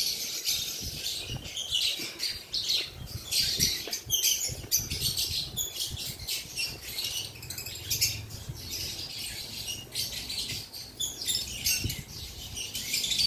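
Day-old lovebird chicks cheeping in quick, irregular runs of thin, high-pitched calls, begging to be fed.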